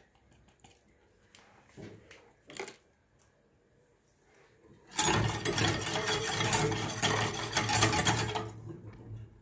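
Wire whisk rattling rapidly against the inside of a steel saucepan as chocolate sauce is whisked. It starts about five seconds in and lasts about three and a half seconds, after a few faint clicks.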